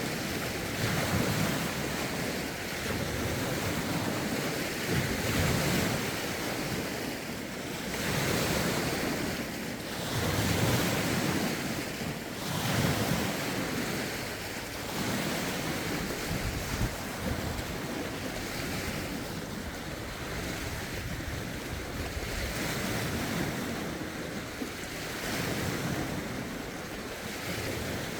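Lake waves washing in and lapping, swelling and easing every couple of seconds, with wind gusting and buffeting the phone's microphone.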